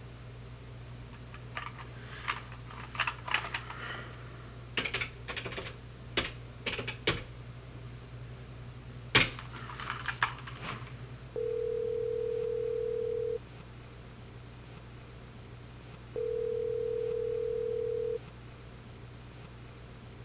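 Phone buttons clicking, about a dozen presses as a number is dialed, with one louder click near the middle. Then the ringing tone of the call, heard through the handset: two steady rings of about two seconds each, a few seconds apart.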